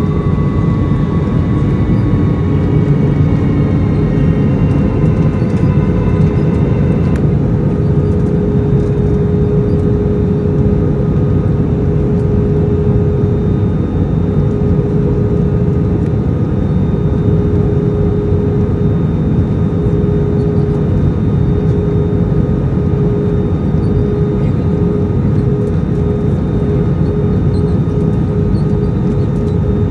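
Steady, loud jet engine and airflow noise of an Airbus A321 in flight, with a constant hum throughout. Several higher whining tones fade out in the first seven seconds or so.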